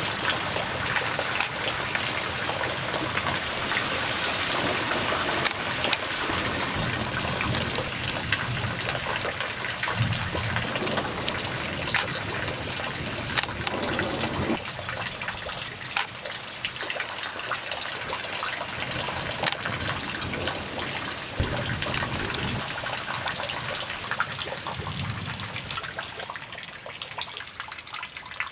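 Steady rain during a thunderstorm, an even hiss with sharp single drops striking close by now and then. The hiss eases a little toward the end.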